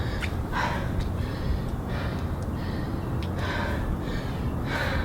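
A woman breathing hard and gasping, winded from a high-intensity bodyweight workout, with a heavy breath about once a second over a steady low rumble.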